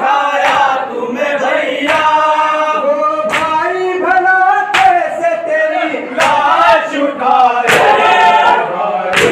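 Men chanting a noha (Shia mourning lament) in chorus, with sharp hand-on-chest matam slaps keeping time, about one every second and a half.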